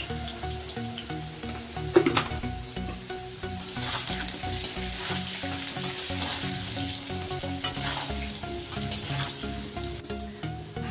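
Cubed potatoes sizzling in hot oil in a metal kadai, stirred with a metal spatula that scrapes and knocks on the pan, with one sharp knock about two seconds in. They are being shallow-fried with salt and turmeric before going into the curry.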